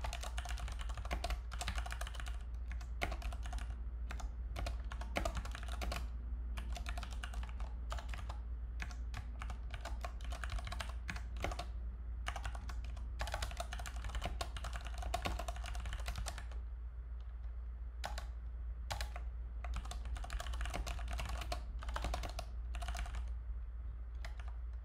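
Typing on a computer keyboard: quick runs of keystrokes with short pauses between them. A low steady hum runs underneath.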